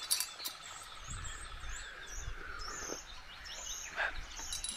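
Small birds chirping and singing in short repeated phrases over a steady outdoor hiss, with a few faint clicks.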